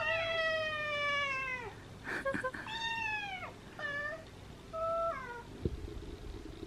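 A cat meowing several times: one long meow that falls in pitch at its end, then three shorter meows.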